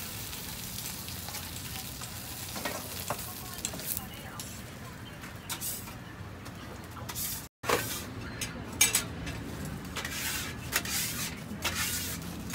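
Ham slices sizzling on an oiled flat-top griddle, with a few light clicks and scrapes of steel tongs turning and stacking them. About seven and a half seconds in, the sound cuts off abruptly and gives way to a run of sharper clicks and rustles.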